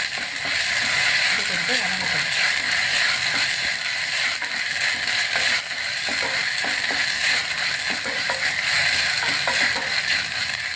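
Chopped onions and green chillies sizzling in hot oil in a stainless steel pot, stirred with a wooden spatula that scrapes and knocks against the pot in quick, irregular clicks.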